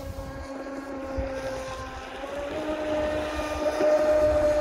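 RC speedboat's TP Power 4060 brushless motor and propeller whining at speed on a 4S lipo, one steady tone with overtones. About two seconds in the pitch rises slightly and the whine grows louder as the boat comes closer.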